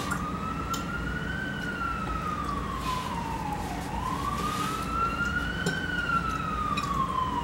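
Emergency vehicle siren wailing, its pitch rising and falling slowly, about one full cycle every four seconds.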